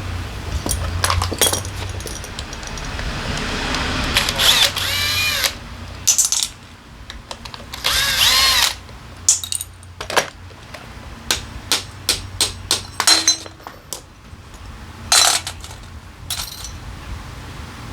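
Workshop tool sounds during carburetor cleaning: two short pitched whirs that rise and fall, then a run of sharp clicks and light knocks from small metal parts being handled.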